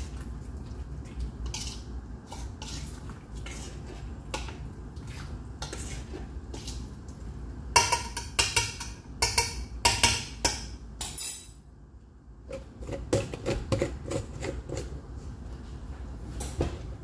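Metal spoon stirring in a large stainless steel pot, clinking and scraping against the sides. A loud run of ringing clinks comes about eight seconds in, and a quick clatter follows a short pause, over a steady low hum.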